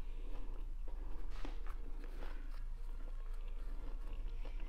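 A person chewing a bite of a soft fried-dough sandwich filled with lettuce, tomato and cheese: quiet mouth sounds with scattered soft clicks and crackles.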